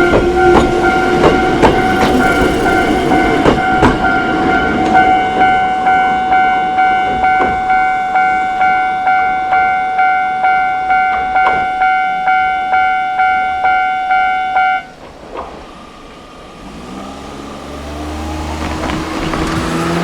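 Japanese level-crossing warning bell ringing in a steady, rhythmic ding, about one and a half strokes a second, while a Choshi Electric Railway train clatters over the crossing's rail joints in the first few seconds. The bell stops about fifteen seconds in, and a rising vehicle hum builds near the end.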